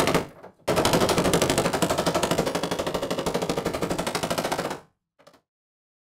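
Small hammer rapidly tapping a sheet-metal panel into place at the door-hinge pillar of a 1939 Citroën U23 truck cab. It is a fast, even run of metallic taps, about ten a second, with a brief break just under a second in. The taps stop sharply near the end, followed by one faint knock.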